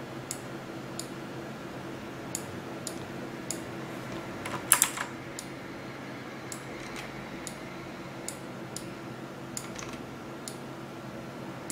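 Scattered sharp clicks from a computer mouse and keyboard, one or two a second, with a louder cluster of clicks about five seconds in, over a faint steady hum.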